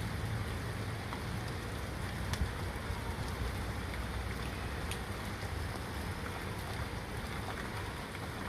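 Steady rain falling, an even hiss with a low rumble underneath and a few faint drip ticks.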